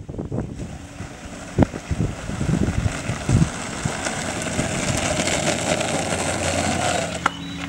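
Skateboard wheels rolling on asphalt: a rushing rumble that grows louder and then holds steady, with a couple of knocks in the first half, and cuts off suddenly near the end.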